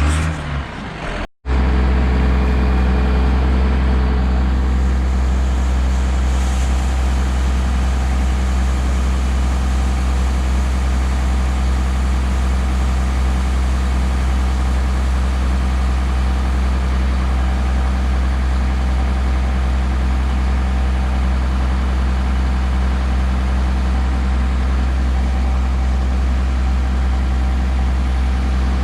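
Heavy farm vehicle's diesel engine running at a steady speed, a loud low drone that does not change. The sound drops out completely for an instant about a second and a half in, then resumes.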